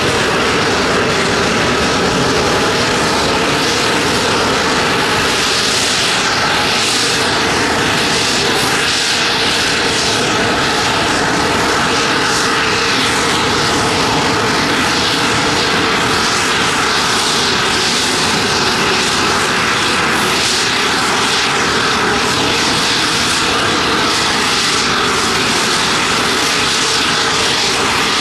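Steady, loud jet engine noise from a Boeing C-17A Globemaster III during engine start, as the outboard engine on the near wing spools up.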